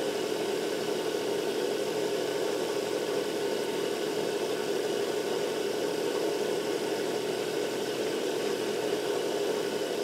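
Jeweler's micro motor running steadily at constant speed, spinning a small lathe headstock and chuck through a rubber-band belt, with a hum centred in the mid range. A hand tool is shaving a wax blank turning in the chuck.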